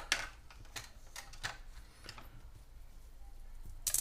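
Light clicks and taps from a USB Type-C cable being handled, a few irregular ones in the first half and a louder one near the end.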